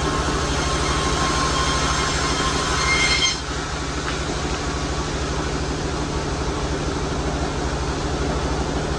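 Sawmill saw cutting through an Albasia log with a high whine over the steady running of its engine; the cut ends suddenly a little over three seconds in, and the engine runs on.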